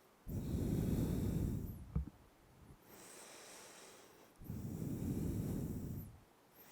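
A person's deep, audible breaths held in a yoga pose: two long, heavy breaths close to the microphone, each about a second and a half, with a softer breath between them.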